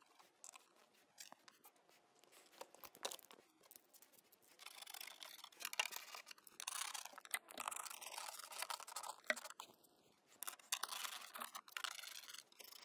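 Faint rustling, scraping and small clicks of plastic engine-bay parts and wiring being handled, getting busier after the first few seconds.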